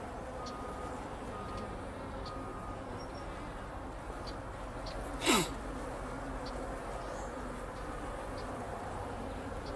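Honeybees buzzing around an open hive in a steady hum. About five seconds in, a louder buzz passes close and drops sharply in pitch.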